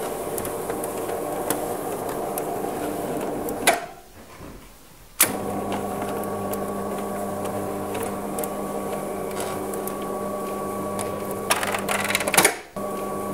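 FAAC T-mode tubular motor inside a roller shutter's tube hums steadily as it winds the shutter up, then stops with a click at the top about four seconds in. After a short pause it starts again with a click and runs the shutter back down, the aluminium slats clattering as they settle at the bottom near the end.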